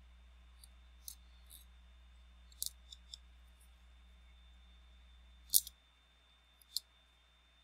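Scattered small clicks and taps of tools being handled at a microsoldering bench, two sharper ones in the second half, over a faint steady electrical hum with a thin high whine.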